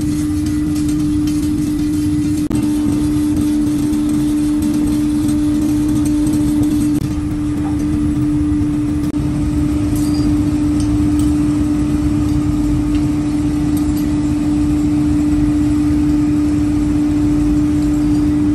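Workshop machinery running with a steady hum on one constant pitch over a low rumble.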